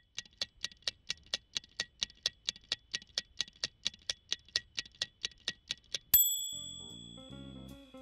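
Fast, even timer ticking, about five ticks a second, then about six seconds in a single bright bell ding, the loudest sound, that rings out and fades. A plucked bass and guitar tune starts just after the ding.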